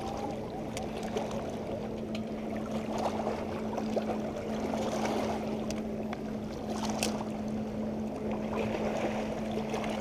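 Water lapping and sloshing, with a steady low hum throughout and a few light clicks.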